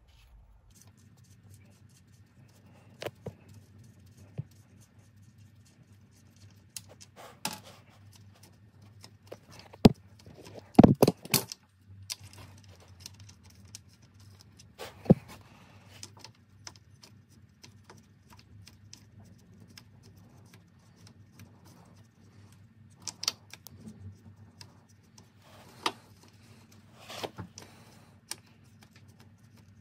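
Hand tools working on the torque rod mount: metal clinking and clanking as a spanner and sockets undo its nuts and bolts. The clicks are scattered, with a burst of loud metal knocks about ten seconds in and another sharp one a few seconds later.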